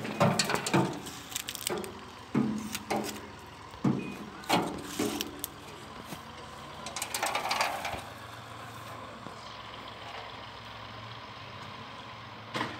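Goats' hooves thumping and knocking on a hollow drum as they jump and scramble on it and it rocks. There is an irregular run of thumps over the first eight seconds, then only a low steady hum and a single sharp click near the end.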